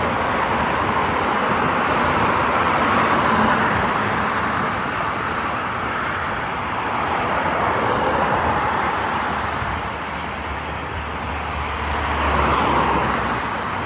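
Steady roar of vehicle noise that swells and fades about three times, typical of road traffic passing, with a deeper rumble building near the end.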